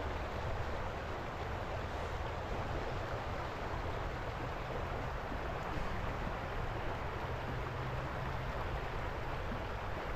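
River water rushing steadily over rocks, a continuous even noise.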